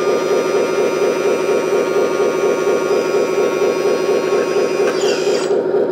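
Small electric hydraulic pump of an RC dump truck whining as it raises the tipper bed, over a steady, fast-pulsing simulated diesel engine from the truck's sound unit. The high whine shifts and drops away near the end while the engine sound runs on.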